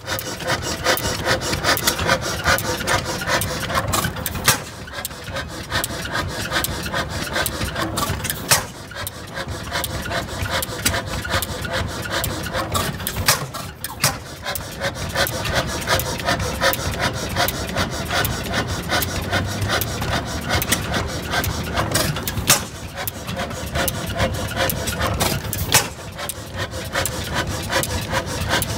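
Large horizontal single-cylinder stationary gas engine running, its valve gear and moving parts clattering in a fast, steady rhythm, with a few louder clacks now and then.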